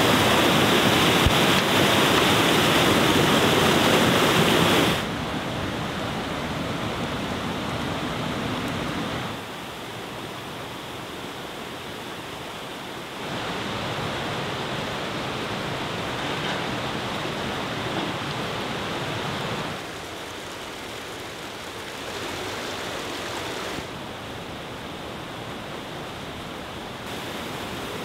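Rushing water of a mountain stream and mill channel, a steady dense rush with no distinct splashes. Its level drops sharply about five seconds in and shifts abruptly several more times.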